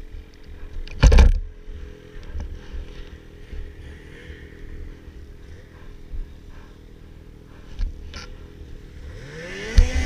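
Snowmobile engine idling steadily, with one loud thump about a second in. Near the end a second snowmobile drives past close by, its engine note rising and then falling as it goes by.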